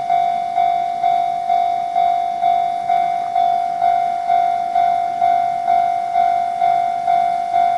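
Japanese railway level-crossing warning bell ringing steadily, about two strikes a second, each strike fading before the next. It signals that a train is approaching the crossing.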